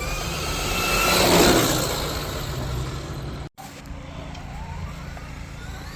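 Traxxas X-Maxx RC monster truck running, its brushless electric motor whining up and down in pitch over tyre and drivetrain noise. It is loudest about a second in. The sound cuts off abruptly for a moment at about three and a half seconds, then returns quieter with a rising whine.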